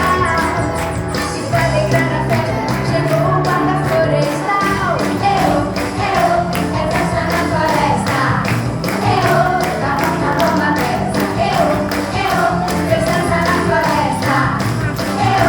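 A lively song playing: a singing voice over a steady percussion beat.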